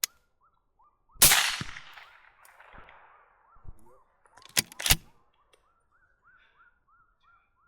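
Suppressed rifle shots: one loud shot with a long echoing tail, then two quick shots together about three seconds later. A faint short chirping call repeats several times a second underneath.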